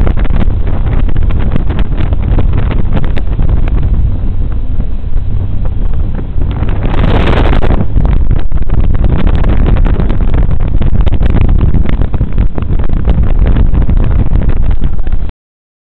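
Wind buffeting the microphone on an open jet boat running fast along a river, over the boat's engine and rushing water. About seven seconds in there is a brief, brighter hiss. The sound cuts off abruptly near the end.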